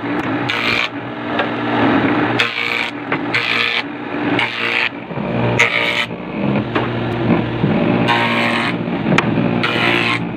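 Bench-mounted power saw running with a steady motor hum, cutting wood as short boards are pushed through, with louder rasping surges about once a second.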